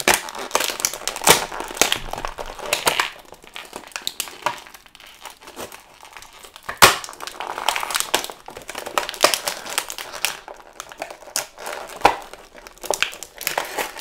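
Clear plastic packaging of an action figure crinkling and crackling as it is handled and pulled apart to free the figure, with a few sharper snaps of the plastic.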